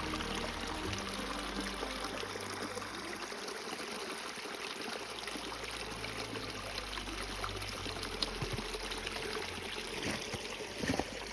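Steady running water with a few short knocks near the end, over soft background music.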